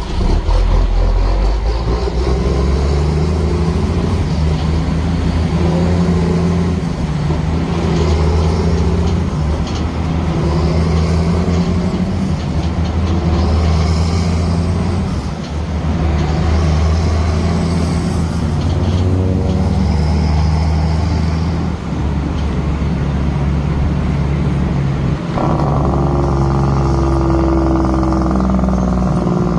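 Road traffic heard from a moving vehicle: a steady, loud engine drone and road noise, the low engine note shifting in pitch every second or two. The sound changes abruptly near the end.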